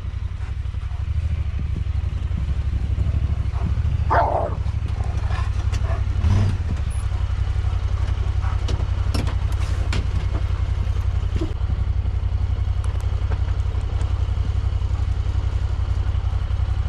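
A vehicle engine idling steadily, with a brief louder sound about four seconds in and a few sharp clicks or knocks later on.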